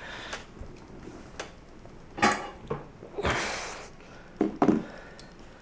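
Knocks and clatter from handling a new plastic drawer rail in a kitchen cabinet: a few sharp knocks, a short scraping sound near the middle, and two quick knocks close together near the end.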